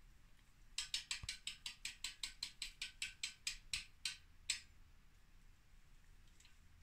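Freewheel clicking of a Bontrager Aeolus 5 rear wheel's freehub with DT Swiss internals: a run of about twenty sharp ratchet clicks that slow down and stop a little over halfway through.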